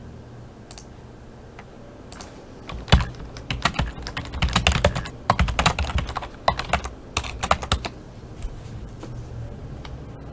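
Typing on a computer keyboard: a few scattered keystrokes at first, then a quick run of key clicks through the middle, tapering off to occasional presses near the end.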